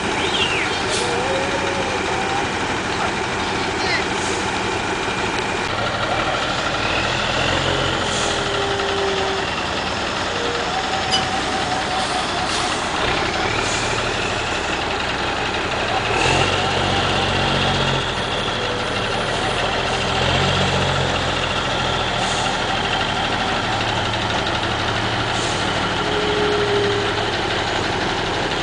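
Heavy diesel semi-truck engine running steadily at low revs, with a low, even hum that swells a little now and then.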